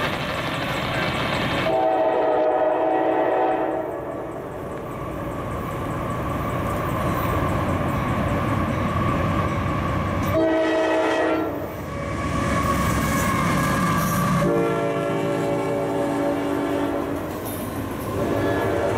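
Freight train's diesel locomotive horn sounding in several blasts: a long one at the start, a short one about halfway, a long one a few seconds later and another starting near the end. The approaching train rumbles steadily underneath, and near the end double-stack container cars roll past.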